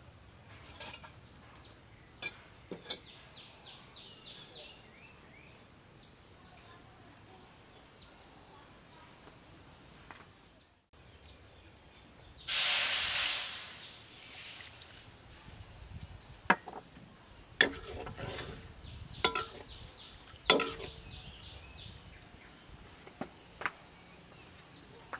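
Liquid poured into a hot iron wok over a charcoal fire, hissing loudly all at once and dying away over about two seconds, followed by a few sharp clicks. Before it, faint bird chirps.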